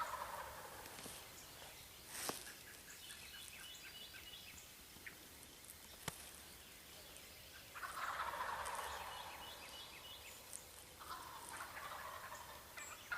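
Wild turkeys gobbling: the tail of one gobble at the start, then two long rattling gobbles about eight and eleven seconds in.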